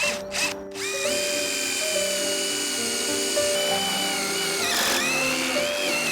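A cordless power tool's motor running with a steady high whine from about a second in, its pitch dipping and wavering near the end. A few sharp knocks come just before it starts. Background music with a melody plays throughout.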